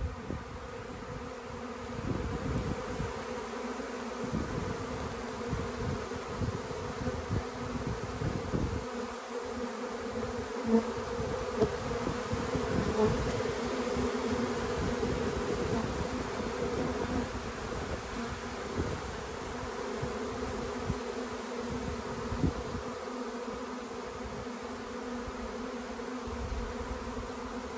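A swarm of honeybees buzzing steadily, thousands of bees flying around and crowding onto a hive as the swarm moves in through its entrance.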